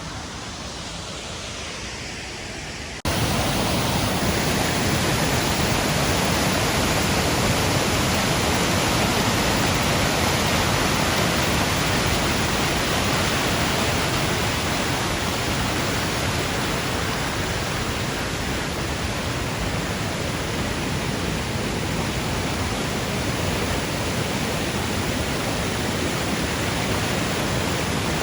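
Tall waterfall, a steady rush of falling water. It jumps suddenly louder about three seconds in.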